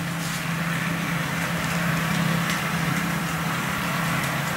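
A steady low hum with an even hiss under it, holding level throughout, with a few faint clicks.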